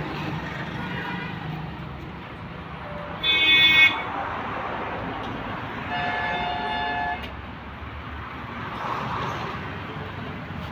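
Street traffic noise with two vehicle horn honks: a short, loud one about three seconds in and a longer, quieter one about six seconds in.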